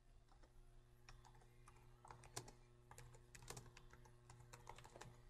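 Faint typing on a computer keyboard: a run of quick, irregular key clicks as a name is typed in.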